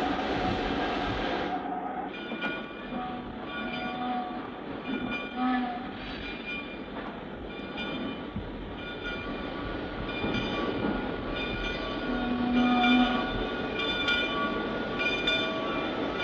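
Diesel locomotive horns sounding in repeated short blasts at several pitches over the steady rumble of moving trains, on an old sound-effects record.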